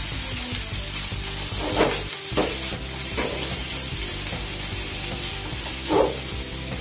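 Food sizzling in a frying pan over a gas flame as it is stir-fried with chopsticks. A few sharp knocks sound as the chopsticks hit the pan, the loudest about six seconds in.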